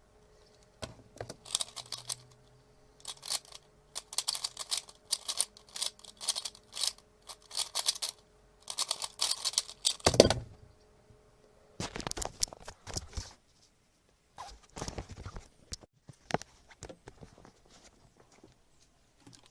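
3x3 Rubik's speedcube turned at high speed: rapid plastic clicking and clacking of the layers in quick bursts for about nine seconds, ending in one loud thump. Scattered handling clicks and knocks follow.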